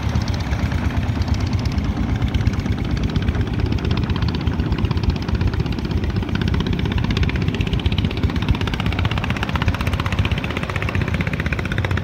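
Wooden long-tail boat's engine running steadily under way, a fast, even pulsing with no change in pace.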